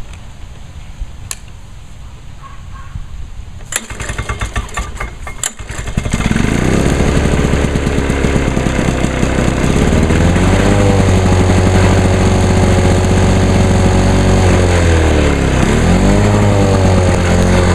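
Cold 1986 Lawn-Boy 8461 Commercial mower with a two-stroke engine, pull-started. Two pulls of the recoil starter about four and five and a half seconds in, and the engine catches on the second pull about six seconds in, then runs steadily. Its speed climbs about ten seconds in, sags briefly near the end and picks up again.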